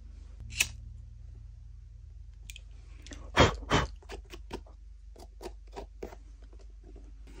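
Disposable lighter being flicked and a leather boot turned over in the hands while frayed stitching threads are singed: a sharp click about half a second in, two louder knocks around three and a half seconds in, then a string of small clicks and taps.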